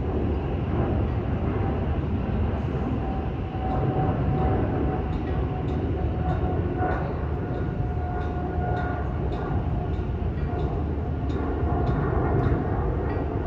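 Metro train running, a steady rumble with a motor whine, and from about five seconds in a series of quick regular clicks, like wheels passing rail joints.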